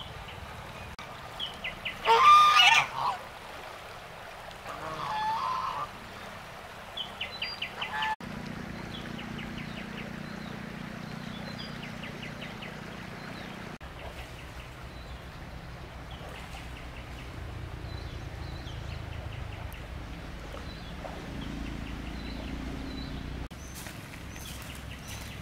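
Waterfowl honking, two loud calls about two and five seconds in, with short rapid clicking calls around them. After about eight seconds there is a steady low hum with faint chirping.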